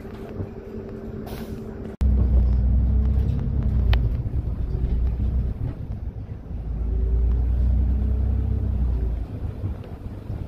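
Solaris Urbino 12 IV city bus running: a moderate hum with a steady low tone, then, after an abrupt break about two seconds in, a much louder low rumble that dips about six seconds in, swells again and eases near the end.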